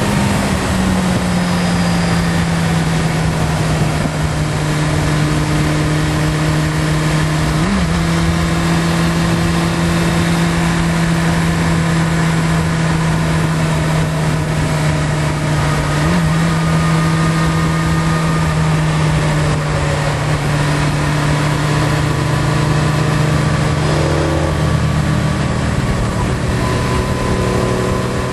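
A vehicle engine running at steady revs under way, its note holding nearly level. There is a brief blip in pitch about 8 and 16 seconds in, and the note changes near the end.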